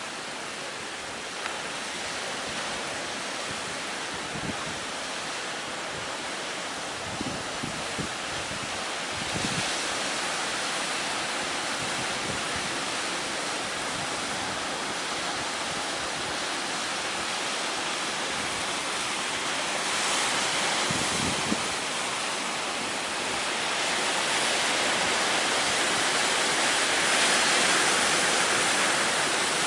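Heavy surf from high waves breaking and washing in, a steady rushing noise that swells about nine seconds in, again around twenty seconds, and builds toward the end. Strong wind blows across the microphone, with a few short low buffets in the first half.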